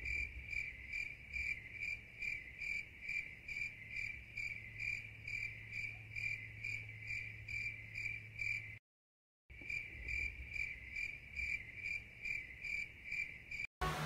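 A cricket chirping faintly and evenly, about two and a half chirps a second, over a low steady hum. The sound cuts out completely twice, once for under a second about nine seconds in and once briefly near the end.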